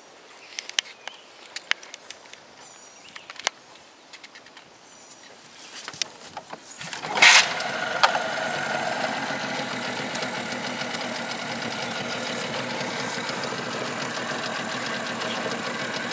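Small outboard motor starting with a loud burst about seven seconds in, then idling steadily. Before that, only a few faint clicks of handling.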